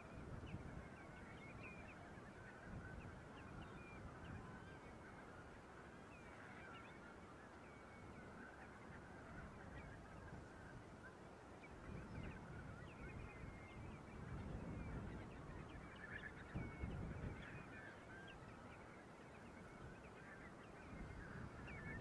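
A flock of coastal waterbirds calling constantly and faintly, many short overlapping calls, over a low steady noise.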